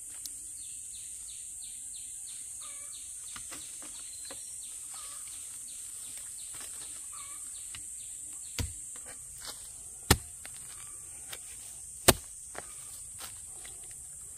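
Steady high-pitched insect drone, with a scatter of light clicks and three loud sharp knocks in the second half, each about two seconds apart.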